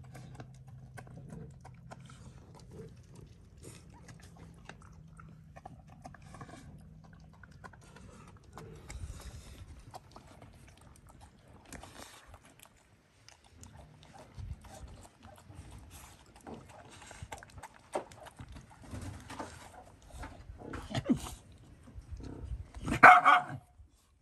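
A dog vocalizing: a low steady pitched sound for the first several seconds, then one loud short cry near the end.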